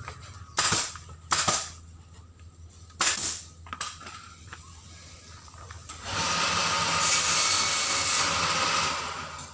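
Workshop tool noise: three short bursts, then a steady hissing run lasting about three seconds.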